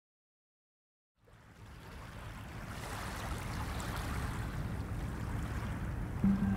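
Sea ambience of waves and wind, fading in out of silence about a second in and swelling gradually. Near the end a low held musical note begins beneath it.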